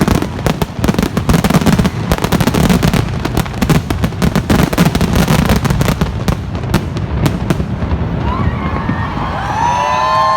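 Fireworks crackling and popping in a dense, rapid barrage that thins out after about eight seconds. Near the end, whistling tones that rise and fall come in.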